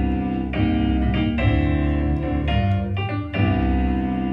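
House music playing, with piano chords over a heavy bass.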